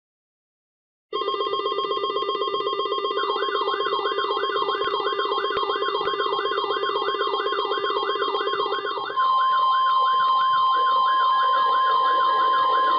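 Several weather alert radios sounding their alarms at once, starting together about a second in: a fast low pulsing beep, high steady beeps, and from about three seconds in a rapid rising-and-falling warble. About nine seconds in the low pulsing stops and a loud steady tone takes over, the long attention tone of a weather radio warning.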